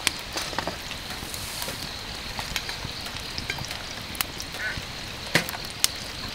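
Wood campfire in a fire pit crackling: a steady hiss with irregular sharp pops and snaps.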